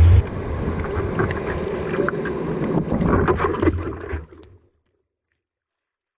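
Rushing ocean water and wind buffeting an action camera's microphone, a steady noisy wash that fades out about four seconds in to near silence.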